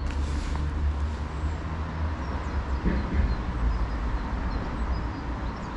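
Steady low outdoor rumble with an even background hiss, and a few faint high chirps about midway.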